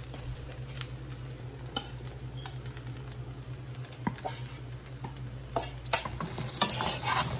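Fried rice sizzling in a steel wok as chunks of barbecue chicken are tipped in from a bowl, with scattered clicks and scrapes of a utensil against the wok that come thicker and louder near the end as the stirring starts. A steady low hum runs underneath.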